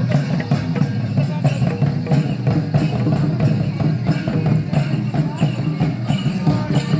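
Traditional Santhali dance music with a steady drum beat, voices mixed in.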